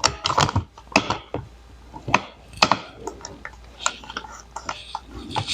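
Irregular clicks and light knocks of hand tools and metal window-frame parts being handled while a screw is worked into place, about a dozen sharp taps spread over a few seconds.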